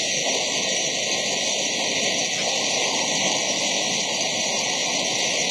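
Hailstorm: dense hail and rain beating down in a steady, unbroken hiss.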